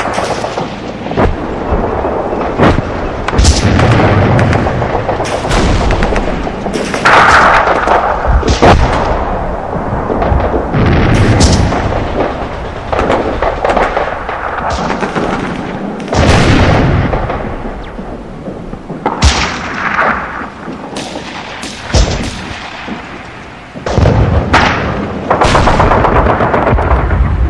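War sound effects: a dense battle mix of gunshots and heavy booming explosions, with a continuous low rumble underneath.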